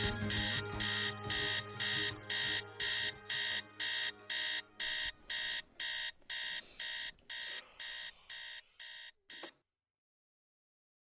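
Alarm-like electronic beeping repeating evenly at nearly three beeps a second over music, the whole mix fading out steadily until it cuts off about nine and a half seconds in, followed by silence.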